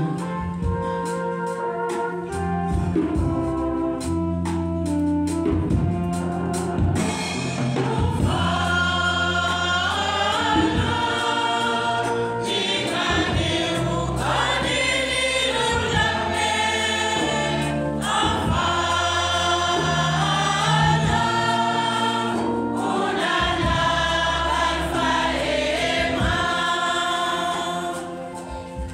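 Church choir singing a hymn in several parts over sustained low accompaniment notes. Sharp percussion strokes run through the first several seconds, and the full choir comes in about seven seconds in.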